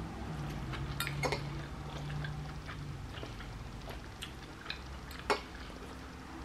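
Metal fork clinking and scraping against a ceramic bowl of pasta salad several times, the sharpest clink about five seconds in, along with mouth sounds of chewing. A low steady hum runs through the first three seconds and then stops.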